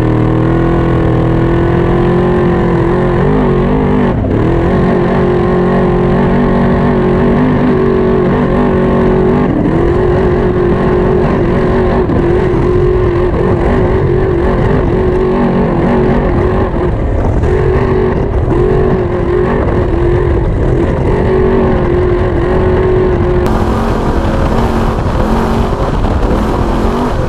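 Trophy Truck's V8 engine running hard at speed off-road, its note dipping and climbing again several times with lifts and shifts, over the rumble of tyres on dirt.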